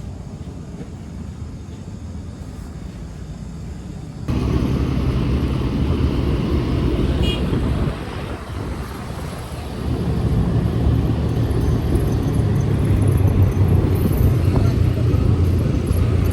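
Passenger train running, a steady low rumble that jumps abruptly louder about four seconds in, dips briefly, then carries on louder.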